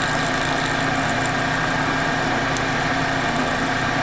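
Milling machine running steadily with a constant hum, its end mill cutting into an old lithium-ion phone battery.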